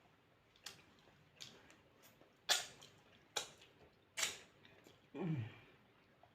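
Mouth sounds of eating: a series of sharp wet lip smacks and chewing clicks, two of them loudest, then a short falling "mm" of enjoyment near the end.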